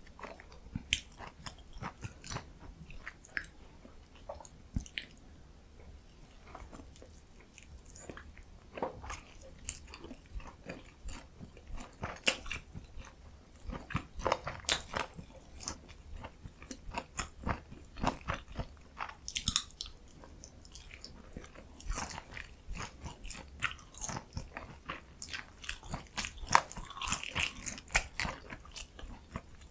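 A person eating mandu dumplings close to the microphone: irregular bites and chewing with wet mouth smacks and crisp crunches, denser towards the end.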